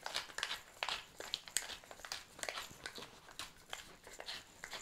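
Hand-twisted pepper mill grinding black peppercorns: a quiet, steady run of small crunching clicks, about three a second.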